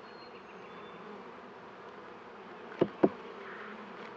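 Honeybees buzzing steadily around an open Langstroth hive, a calm colony. About three seconds in, two sharp knocks come close together.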